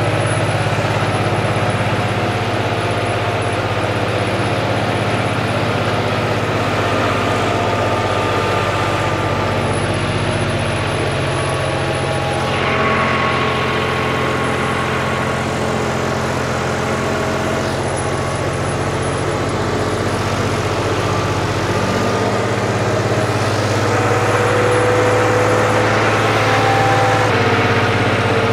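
John Deere tractor's diesel engine running steadily under load, pulling a cultivator through hard soil in second gear, two-wheel drive. The engine has a modified fuel injection pump.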